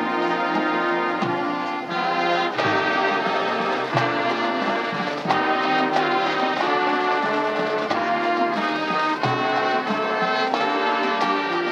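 High school marching band playing held brass chords that change every second or so, with percussion hits marking the chord changes.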